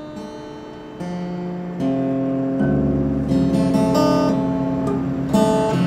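Cutaway steel-string acoustic guitar being strummed and picked: a few chords or notes struck roughly a second apart, each left ringing.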